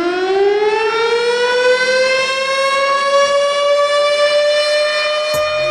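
Civil-defense-style siren wailing, its pitch still creeping up from its wind-up and then holding steady, with many overtones. Near the end a low hum and a few sharp clicks come in.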